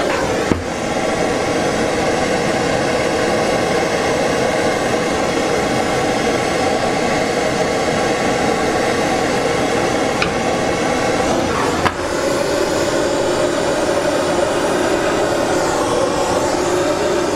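Handheld gas blowtorch flame burning with a steady hiss, heating a copper water pipe so tin solder melts into a repair fitting. Two brief clicks break the sound, about half a second in and again near twelve seconds.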